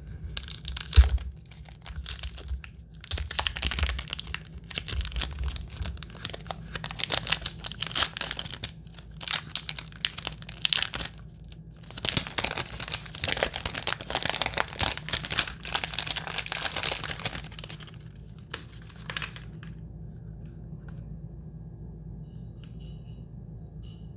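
Perfume packaging being torn open and crinkled by hand, in a series of crackling bursts that stop a few seconds before the end.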